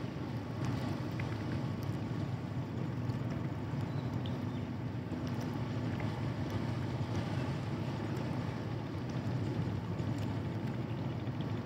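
Large passenger ship Umsini's engines giving a steady low rumble as it manoeuvres out of harbour.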